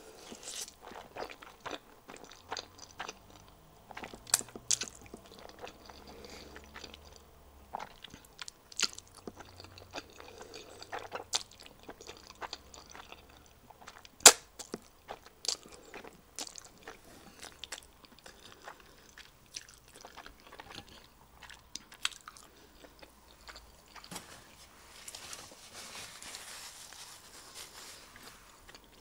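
Close-miked chewing and slurping of a mouthful of instant black bean noodles (jjajangmyeon), with many wet mouth clicks and smacks; the sharpest sound comes about halfway through as noodles are sucked in. Near the end a paper napkin rustles softly as the mouth is wiped.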